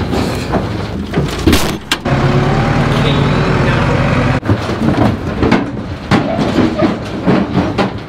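Irregular knocks and clatter, then a tractor engine running steadily for about two seconds, cut off abruptly, then a calf moving about in a metal livestock trailer, with repeated knocks and bumps.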